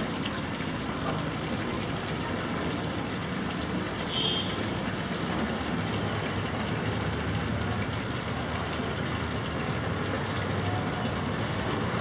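Steady outdoor background noise, mostly a low rumble like distant traffic. A single short, high chirp comes about four seconds in.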